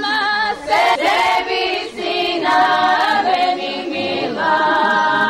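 A group of girls and women singing a traditional folk song together in high voices, in short phrases with brief breaths between them.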